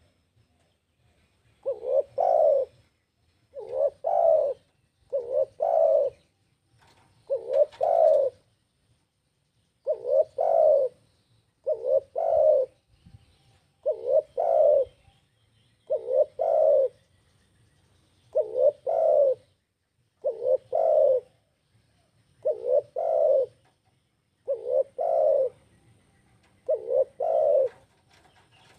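Spotted dove (tekukur) cooing: a short phrase of two or three low coos repeated about every two seconds.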